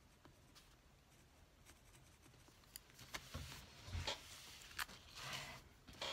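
Spiral-bound Bible being handled and turned on a table: quiet at first, then a few light clicks and short paper rustles in the second half.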